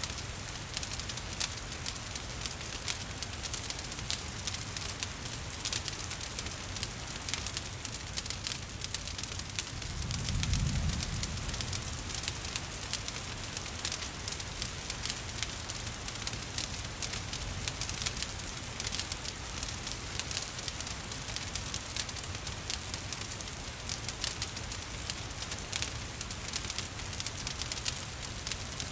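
Wood fire crackling, with many small pops and snaps over a steady hiss of falling rain. A brief low rumble swells up about a third of the way in.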